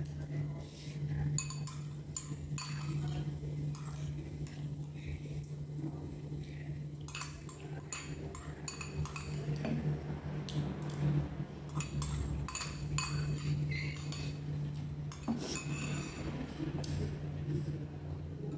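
Metal spoon clinking and scraping against a ceramic rice bowl during eating, in many short irregular clicks, over a steady low hum.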